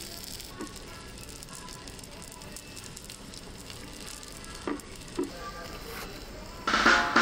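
Steady sizzle of food on a hot iron steak plate, with a couple of faint clicks. Background music comes in near the end.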